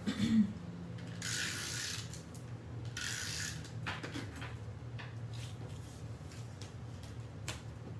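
Handheld tape runner laying adhesive on cardstock: two short ratcheting strokes, about a second in and about three seconds in.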